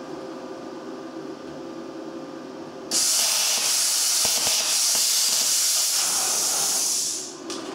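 Faint steady hum, then about three seconds in a plasma cutter's torch fires with a loud, steady hiss of air and arc that lasts about four seconds and dies away. The cut is going badly, which the operator suspects is because it is cutting on the pilot arc alone.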